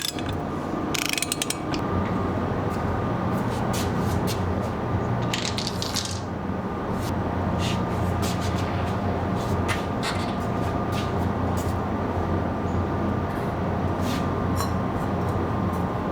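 Scattered sharp clicks and ratcheting of hand tools over a steady machine hum.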